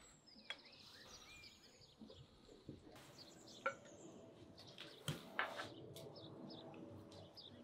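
Birds chirping faintly, with a few light clinks and knocks of a serving utensil in a cauldron as stewed meat is dished out.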